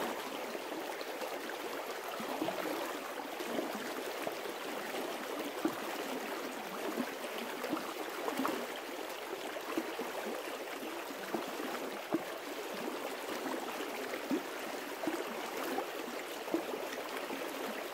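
Shallow stream running over a stony bed: a steady rush of water with many small gurgles and splashes.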